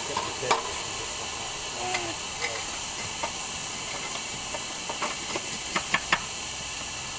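Steady hiss of steam from a miniature live-steam locomotive, while a fire iron clinks and scrapes in the firebox as the fire is cleaned out through the grate into a metal bucket. The sharp metallic clinks come singly at first, then several close together about five to six seconds in.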